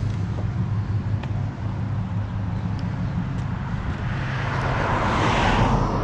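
Truck engine running steadily with a low hum; a hissing noise swells up near the end.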